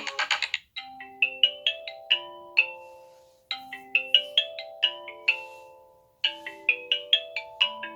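Samsung Galaxy Note8 ringtone: a marimba-like melody of struck, quickly fading notes, with one short phrase repeated three times. A busier previous ringtone cuts off just as it begins.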